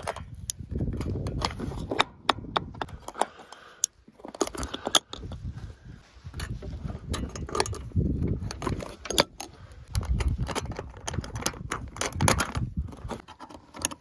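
Carabiners clinking and metal over-center roof latches clacking open on a Northstar SC 850 pop-up truck camper: a long run of sharp metallic clicks, the roof being unlatched before it is raised. A low rumble comes and goes underneath.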